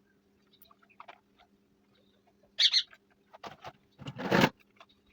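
A bird gives a loud, sharp double chirp about halfway through. A short rustle of handling noise follows near the end, over a faint steady hum.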